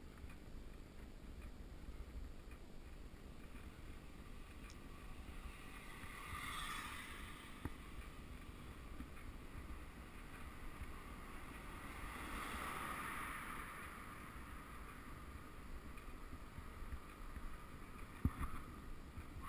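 Wind and tyre rumble from a road bicycle rolling along asphalt, picked up by a camera mounted on the rider or bike. A hiss swells twice, and a sharp knock comes near the end.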